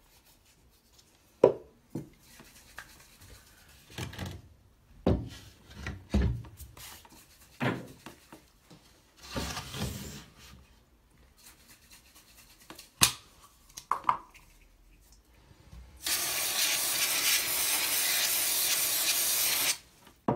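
MDF skirting-board pieces handled and set down, giving scattered sharp knocks. About four seconds from the end, an aerosol of two-part mitre adhesive activator sprays in one steady hiss lasting about four seconds onto the mitred MDF face.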